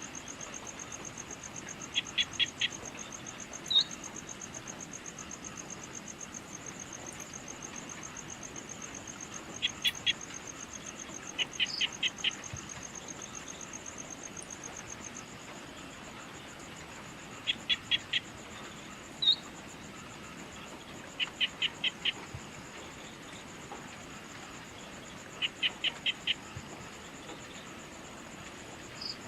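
Evening insects trilling in a steady, fast, high-pitched pulse. Over them a small animal gives repeated calls of four or five quick notes every few seconds, with a single sharp chirp now and then.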